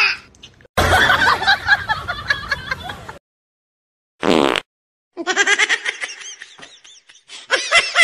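People giggling and laughing in bursts, broken by short silences where the clips cut. Near the end it becomes a quick run of rising-and-falling giggles.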